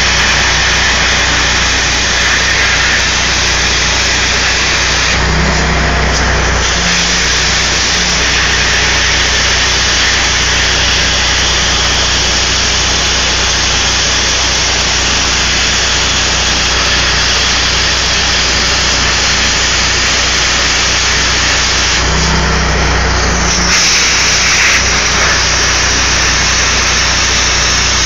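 Everlast Power Plasma 60C plasma cutter on a CNC table cutting steel plate: a steady, loud hiss of the plasma arc and air jet with a low hum underneath. Twice, about five seconds in and again some seventeen seconds later, the high hiss thins for a second or so and a deeper rumble rises.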